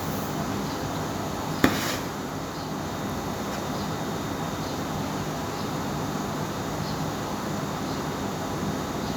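Steady background noise with a low hum, broken by one sharp knock a little under two seconds in and a few faint light ticks.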